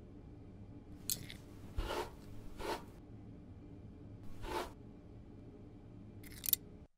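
A comb drawn through hair and stubble in about five short, separate strokes over a faint steady hum.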